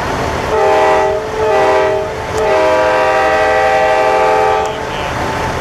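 Semi truck's air horn blowing a chord of several pitches three times: two short blasts, then a long one of about two seconds. Steady crowd noise runs underneath.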